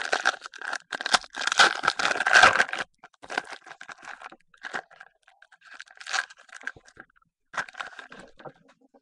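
Foil trading-card pack wrapper crinkling and tearing open for about the first three seconds, then lighter, scattered rustles and slides of the cards being handled.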